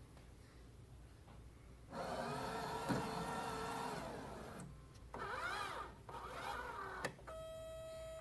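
Rotimatic roti-making machine's motors whirring in stages, their pitch rising and falling, then a click and a steady beep near the end: a start attempt that fails, the machine still in its error state.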